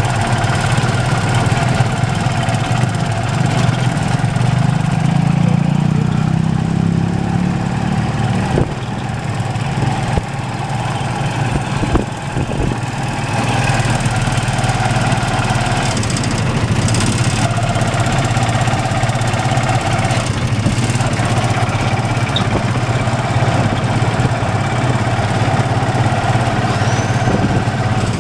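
Motorcycle engine of a Philippine tricycle running steadily under way, heard close from inside the sidecar. About four seconds in its note rises for a few seconds, and the loudness dips briefly twice around a third of the way through.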